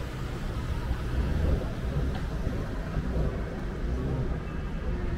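Busy city street ambience: a steady low rumble of traffic, with faint voices of passers-by.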